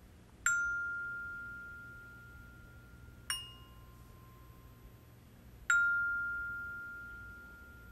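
Glockenspiel (student orchestra bells) bars struck with mallets three times, about two and a half seconds apart, alternating a higher and a lower note. The mallet is dropped and allowed to bounce off so each bar rings on and slowly fades; the second stroke is softer.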